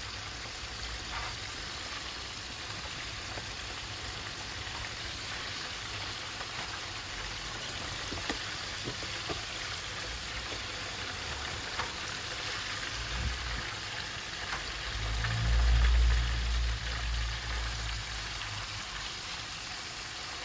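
Hot oil sizzling and bubbling steadily as flour-dredged chicken pieces deep-fry in a pan, with a few faint clicks. About three quarters of the way through, a dull low rumble rises for about two seconds.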